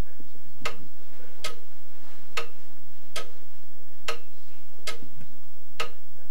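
Steady, even ticking, one sharp tick a little under every second, over a low steady drone.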